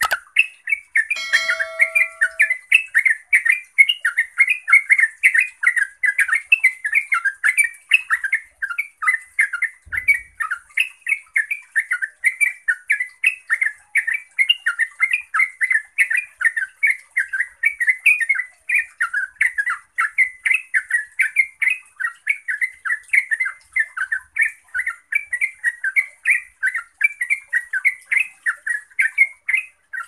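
Yellow-vented bulbul (trucuk) singing a fast, unbroken run of short bubbly notes, about three or four a second, without a pause: the 'ngeropel' delivery that keepers play to set other trucuk singing.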